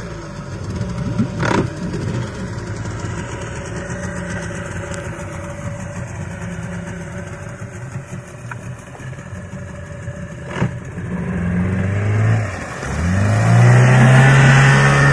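Small Mariner outboard motor on a fibreglass jet-ski-style boat, running steadily at low throttle. Near the end it is opened up: its pitch rises and it gets louder as the boat speeds away.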